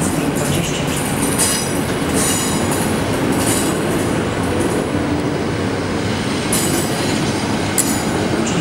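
Passenger coaches of an arriving train rolling slowly past on the rails, a steady rumble of wheels on track. Several brief high-pitched squeals come from the running gear as the train brakes into the station.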